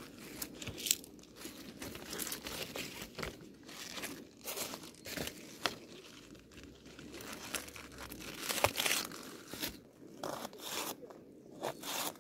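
Knife slicing spring onions on a plastic cutting board: irregular crisp crunches as the blade goes through the stalks, with sharp taps as it meets the board.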